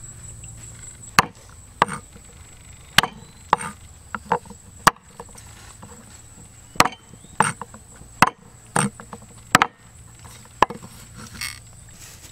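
A blade chopping on wood: about a dozen sharp, irregular strikes, several coming in quick pairs.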